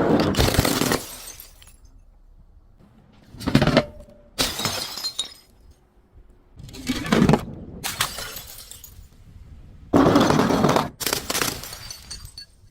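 Glass bottles shattering and crunching in a string of short crashes, about seven in all, a second or two apart. The loudest come at the start and about ten seconds in.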